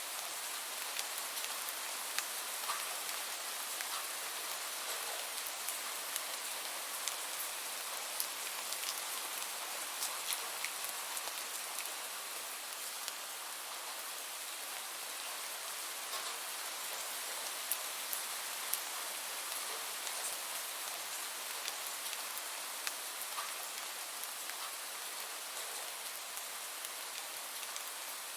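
Steady rain, a continuous hiss of falling drops with scattered sharper drop ticks.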